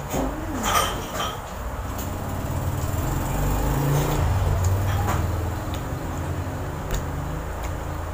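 Chewing a crunchy fried snack, with a few crisp crunches about a second in, over a low rumble that swells in the middle and then eases off.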